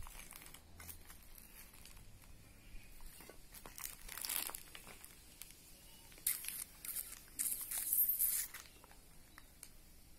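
Dry rustling and crinkling in short, irregular bursts: one about four seconds in, then a loudest cluster from about six to eight and a half seconds in.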